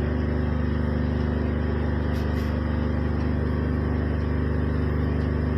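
A steady low hum with several evenly spaced pitches, unchanging throughout, with a few faint clicks about two seconds in.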